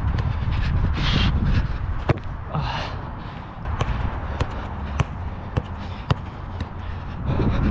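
A goalkeeper's hard breathing close to a head-mounted action camera, with two clear breaths about one and three seconds in and another swell near the end. A football is being tapped and footsteps land on artificial turf as short sharp knocks, over a steady rumble of wind on the microphone.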